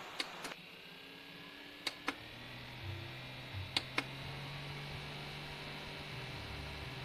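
Small battery-powered desk fan running with a steady airy hiss and low motor hum, its button clicked in quick pairs three times. The hiss drops after the first clicks and a low hum comes in after the second, as the speed setting changes.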